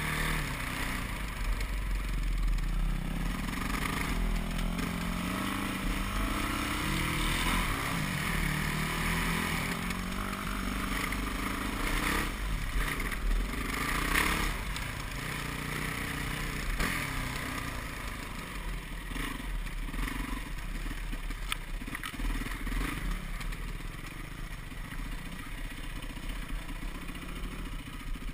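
Yamaha WR450F single-cylinder four-stroke dirt-bike engine under way, its pitch rising and falling as the throttle opens and closes over rough trail. A few brief knocks come about halfway through.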